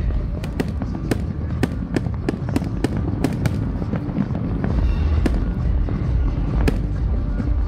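Fireworks display going off in quick succession: sharp, irregular bangs and crackles, several a second, over a deep constant rumble.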